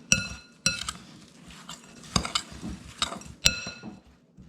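A metal utensil stirring in a mixing bowl, with several sharp ringing clinks against the bowl, as butter is worked into a crumble topping of brown sugar, flour and oats.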